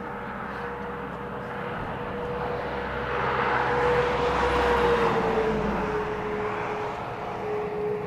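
A vehicle passing by: a rush of noise that swells to its loudest about four to five seconds in and then fades, over a steady hum that drops slightly in pitch as it goes past.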